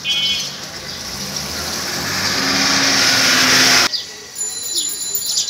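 A motor vehicle's engine running and growing steadily louder, then cut off suddenly about four seconds in; birds chirp briefly after it.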